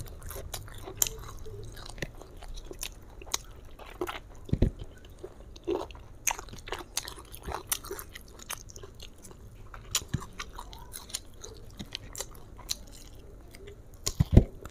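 Close-miked chewing and biting of fried chicken eaten by hand: irregular crisp clicks and smacks. Two louder dull thumps, one about a third of the way in and one near the end.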